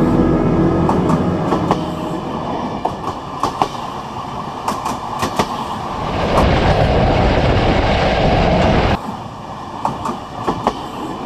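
Moving passenger train, its wheels clicking over the rail joints. From about six seconds in, a louder rushing rumble comes in and cuts off abruptly about three seconds later.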